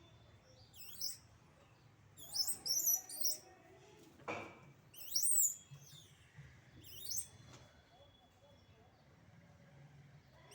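Short bouts of high-pitched, sweeping chirping calls from animals, about five times, with a brief rustle or knock a little after four seconds in.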